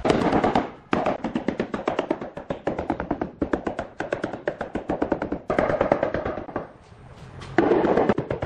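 Rubber mallet tapping rapidly on large ceramic countertop tiles to bed them into the mortar, many quick taps a second in runs with short breaks, over background music.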